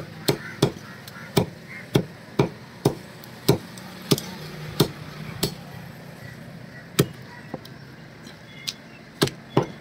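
Heavy cleaver chopping raw chicken on a wooden log block: sharp chops at a steady pace of about two a second, a pause of more than a second, then a few more chops near the end, some lighter.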